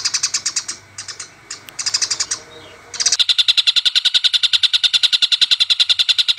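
Recording of fighting house sparrows and Oriental dollarbird calls: a fast, even run of high chirps, broken for about the first three seconds by a rougher, more varied stretch of calls before the run resumes.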